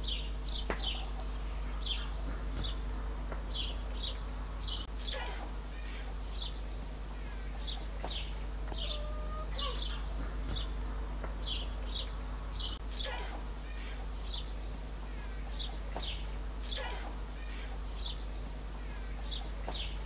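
A small bird chirping over and over, short high falling chirps in quick runs, over a steady low hum.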